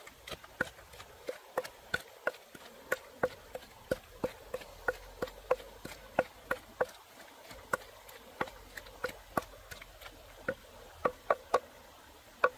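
A steady run of sharp knocks, about two or three a second and varying a little in strength, from hands-on food preparation.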